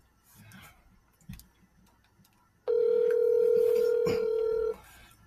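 Ringback tone of an outgoing phone call: one steady ring lasting about two seconds, starting a little over two and a half seconds in, while the other end has not yet answered.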